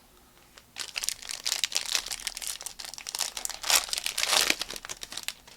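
Panini Prizm card pack wrapper being torn open and crinkled, a dense crackling that starts about a second in and stops just before the end.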